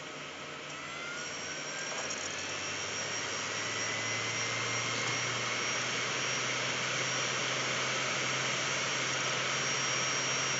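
Old PC CD-ROM drive spinning up at the start of a Windows 95 install: a whine rising in pitch over the first few seconds, then holding, over a growing rush of air.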